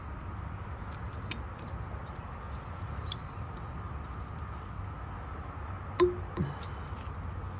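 Damaged seal being picked and pulled out of a Bobcat E32i track tensioner cylinder bore: faint clicks and scrapes over a steady low background rumble, then a sharp click with a short squeak about six seconds in. The seal is the damaged part that lets the track slacken.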